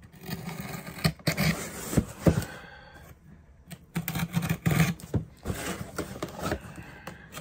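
Cardboard shipping box being handled and its packing tape scraped and cut at: a run of short scrapes, rustles and knocks, with a brief lull about three seconds in.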